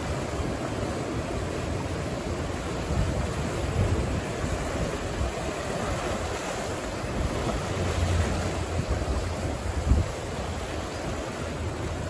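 Ocean surf washing against the shore in a continuous rushing wash, with low rumbles of wind buffeting the microphone now and then.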